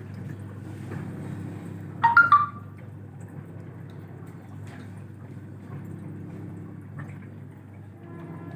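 Zanussi 7.5 kg top-loading automatic washing machine on its Delicate wash cycle: a steady motor hum and water moving in the tub as the drum turns very gently. A short, sharp high-pitched sound cuts in about two seconds in.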